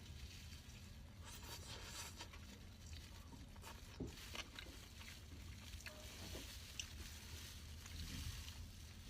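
Faint eating sounds: soft chewing and food handling, with scattered small clicks and rustles over a steady low room hum.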